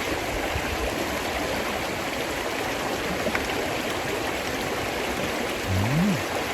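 Steady rush of flowing stream water. Near the end comes a brief hummed "mm" whose pitch rises and falls.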